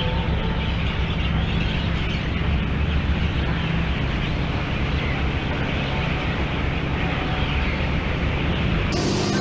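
Car driving steadily along a road, a constant low engine and tyre rumble heard from inside the car.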